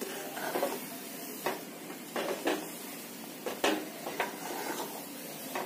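Flat metal spatula scraping and stirring a thick besan paste in a metal kadai while it cooks down for mohanthal: short scrapes about once a second, unevenly spaced, over a low steady hiss.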